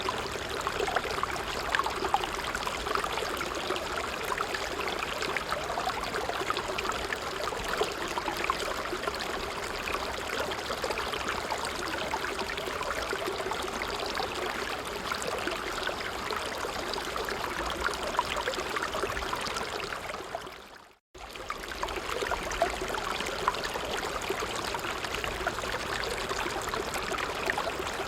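Stream water flowing and trickling steadily over stones. About 21 seconds in, the sound fades to silence for a moment and comes straight back.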